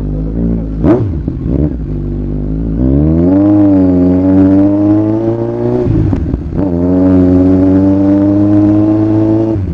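Kawasaki Z1000's inline-four engine pulling the bike along under way. The pitch rises as it accelerates and holds steady, dips about six seconds in at a gear change, then rises and holds steady again. There is a sharp click about a second in.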